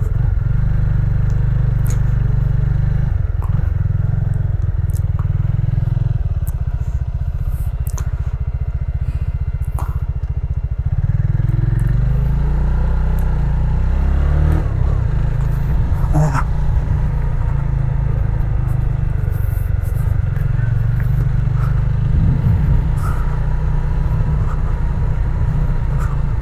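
Benelli TNT25's single-cylinder engine running as the motorcycle is ridden, under a heavy low rumble. The engine note rises and falls a couple of times, around the middle and again near the end.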